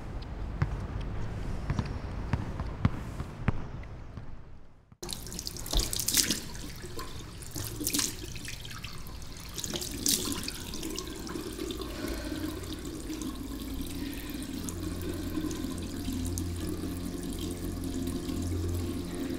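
A basketball bouncing on a hard court, with sneakers moving about, for the first five seconds, fading out. After a sudden cut, a tap runs into a ceramic washbasin with splashes of water. A low steady hum comes in under the running water about twelve seconds in.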